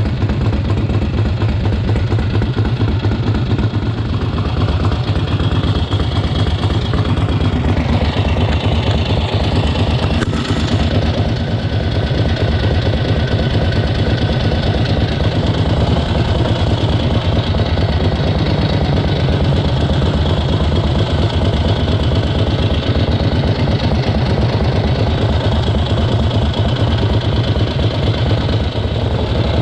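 A 1971 Harley-Davidson XLCH Ironhead Sportster's air-cooled V-twin running steadily at idle, its pushrods freshly adjusted.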